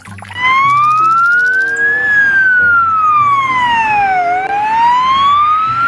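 Ambulance siren wailing. Its pitch rises slowly for about two seconds, falls for about two more, then starts rising again.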